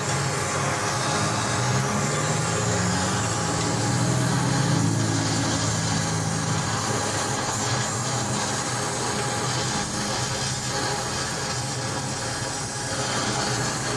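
Gas welding torch hissing steadily as it heats a car's exhaust silencer pipe joint, over a steady low mechanical hum.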